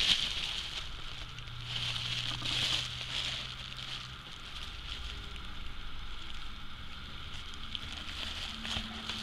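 Plastic bubble wrap crinkling and rustling as it is handled and folded by hand, in uneven bursts that are louder in the first few seconds.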